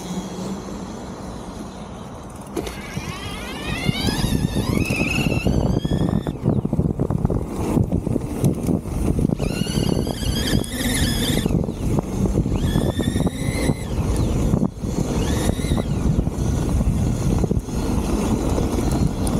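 CYC X1 Pro Gen 4 mid-drive e-bike motor whining, its pitch rising four times as the bike accelerates, over a heavy rumble of wind on the microphone.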